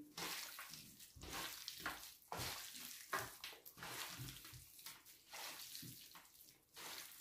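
Chopped raw beef liver and tail fat being mixed by hand with salt and spices: faint, irregular wet sounds in quick short bursts.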